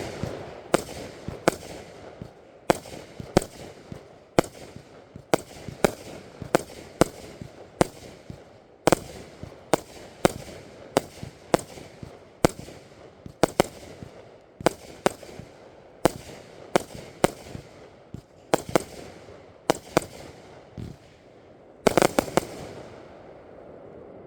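Consumer fireworks going off in a steady series of sharp bangs, about two a second, each with a short echoing tail. The series ends in a quick dense cluster of bangs and then fades.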